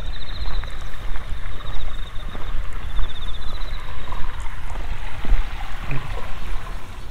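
A low, steady rumble of wind buffeting the microphone, over which a field insect gives a high, pulsing trill in three short phrases during the first four seconds.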